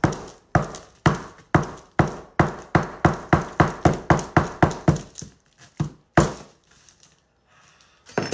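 A hard Moroccan sugar loaf being chopped at with a large kitchen knife on a counter: about a dozen sharp blows in quick, even succession, a little over two a second, then two more blows a little later.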